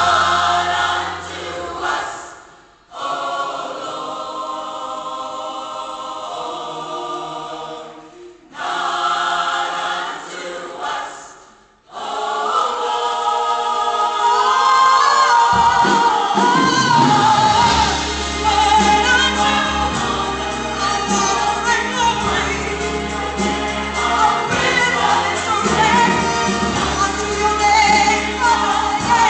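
Large mixed choir singing a gospel-style Christmas anthem. The sound drops out briefly twice, about 3 and 12 seconds in, and a deep bass accompaniment comes in about 16 seconds in as the singing grows fuller.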